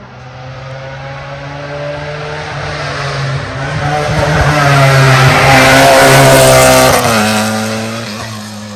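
Rally car at full speed on a special stage, its engine growing louder as it approaches and passing close about seven seconds in with a sudden drop in pitch, then fading away down the road.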